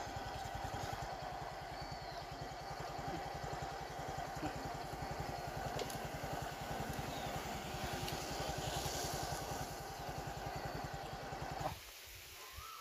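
A motorcycle engine idling steadily, with an even low pulsing and a steady hum; it stops abruptly near the end.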